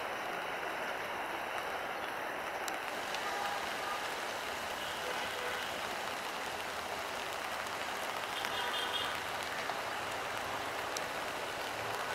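Heavy monsoon rain falling steadily, an even hiss of rain on the ground and track ballast, with a faint low hum underneath in the second half.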